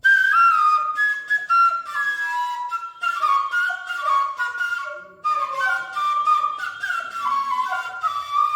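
Bansuri (bamboo flute) playing a slow melody, one note at a time, with a short pause about five seconds in.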